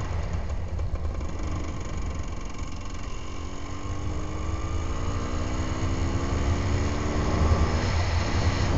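Enduro motorcycle engine running under way, its pitch climbing steadily as it accelerates, with a brief break near the end like a gear change. Heavy wind buffeting on the microphone runs underneath.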